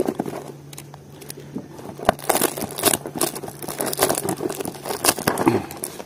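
Plastic bubble mailer crinkling and rustling as it is handled and cut open with scissors, in irregular crackles that are busiest about two to three seconds in and again around five seconds.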